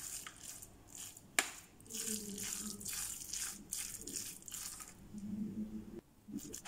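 A metal spoon stirring and mashing a wet ground-meat mixture in an enamelled baking pan: repeated squelching strokes, with one sharp knock of the spoon against the pan about a second and a half in.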